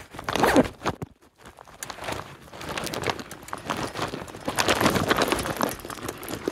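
Mountain bike tyres rolling over a loose gravel track, a continuous crunching and crackling of stones. It goes almost quiet briefly about a second in, then picks up again.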